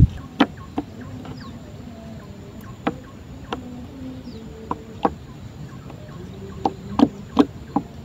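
Irregular sharp clicks and knocks from a fishing rod and spinning reel being handled in a small wooden boat, about ten over several seconds, above a faint steady background.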